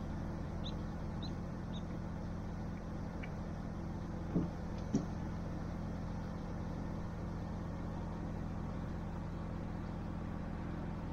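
A car's engine idling steadily with a low hum, and two short knocks about half a second apart near the middle.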